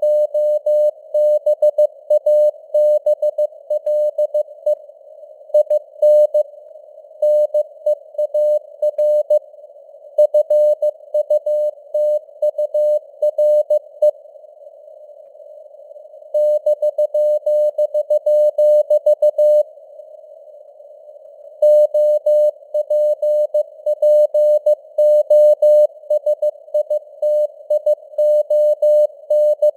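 Morse code (CW) sent as a single keyed tone at 15 words per minute, in dots and dashes, over a narrow band of hiss from simulated radio noise. The keying stops twice for about two seconds in the middle, with only the hiss left.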